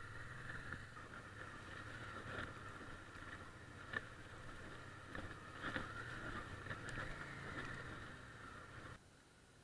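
Motorcycle engine running at low speed over a rough rocky track, heard muffled, with a few sharp knocks and rattles from the bumps. The sound drops to a much quieter hum near the end.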